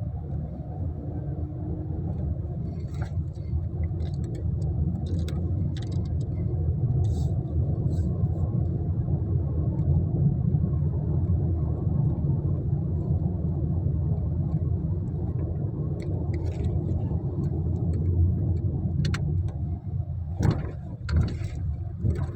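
Car driving along a road: a steady low rumble of engine and tyres, with scattered short knocks and rattles, a few louder ones near the end.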